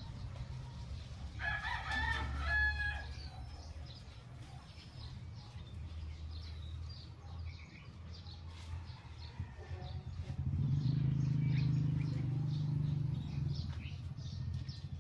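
A rooster crows once, a call of about a second and a half starting about a second and a half in, over faint chirping of small birds and a low background hum. In the second half a low drone swells for about three seconds and fades.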